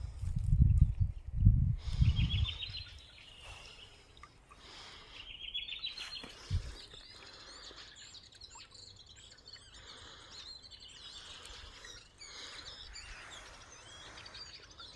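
Songbirds singing in taiga forest: two quick trilled phrases climbing in pitch, then many overlapping chirps and calls. A low rumble fills the first two seconds, and there is a short thump about six and a half seconds in.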